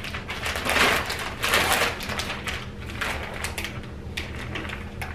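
Plastic wrapping of a store-bought pizza crust crinkling and rustling in short bursts as it is cut open and handled.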